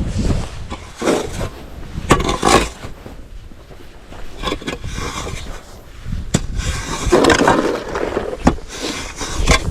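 Snow and ice being scraped off in a series of irregular strokes, with a few sharp knocks between them.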